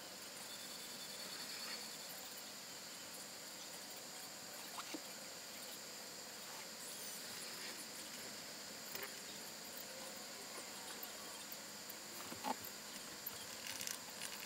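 Quiet room tone with a faint steady high-pitched hiss and a few scattered soft clicks; laptop keyboard typing, a quick run of key clicks, begins near the end.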